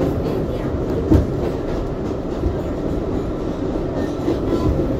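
R142A subway car running on the track, heard from inside the car: a steady rumble of wheels and running gear with occasional knocks from the rails, the sharpest about a second in.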